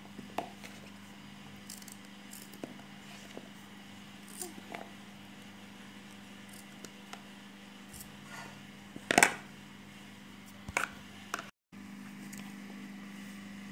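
Kitchen knife cutting pieces off an unripe mango into a plastic bowl: scattered faint clicks and scrapes of the blade. One much louder knock comes about nine seconds in, with two smaller clicks a couple of seconds later.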